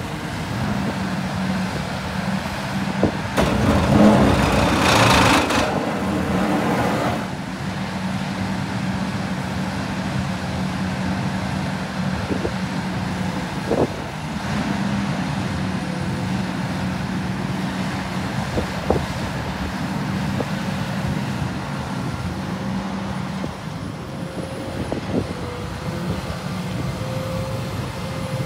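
Volvo EW160E wheeled excavator running, its diesel engine holding a steady hum as the boom, tilting grading bucket and upper structure are worked hydraulically. About four seconds in, the sound gets louder and rougher for around three seconds. A few sharp knocks come through at intervals.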